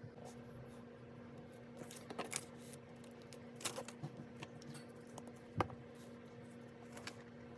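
Scattered light clicks, taps and rustles of paper and stationery being handled while working on a system planner, over a steady low hum. The sharpest tap comes a little past halfway.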